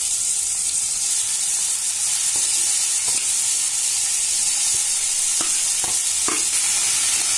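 Chopped onions sizzling and crackling in hot oil in a stainless steel pan as they are tipped in, the frying hiss steady throughout. A few light knocks sound over the second half.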